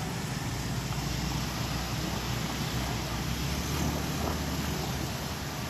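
Motorcycles, scooters and cars driving through shallow floodwater: engines running and water swishing around the wheels, with a steady low rumble.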